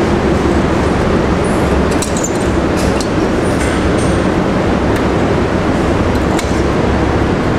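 Rental go-kart engine running steadily at close range in an indoor kart hall, with a few sharp clinks over it.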